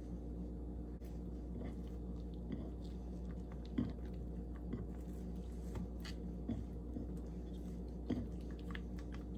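A steady low hum with scattered soft clicks and taps over it, the sharpest just under four seconds in and again just after eight seconds.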